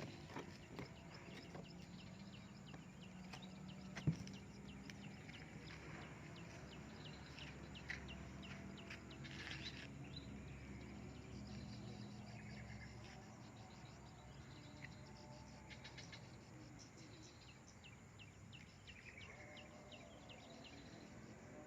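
Faint outdoor ambience: scattered small bird and insect chirps over a low steady hum, with a single sharp knock about four seconds in.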